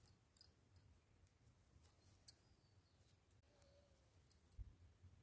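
Faint, scattered clicks of knitting needles as stitches are worked by hand, with one sharper click about two seconds in.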